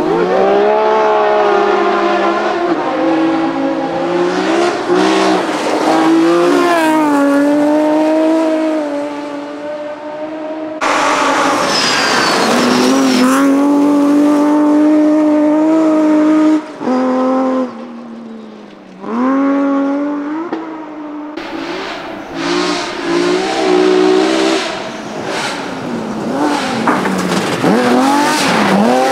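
BMW rally cars at full throttle on a stage, engines revving hard and dropping in pitch at each gear change and as they pass. Three clips follow one another, with sudden changes about a third and two thirds of the way in.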